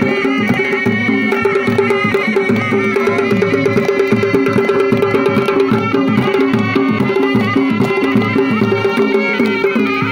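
Live Chitrali dhol-surnai dance music. Surnai pipes play a melody over a steady held note, while a dhol drum beats a fast, even rhythm.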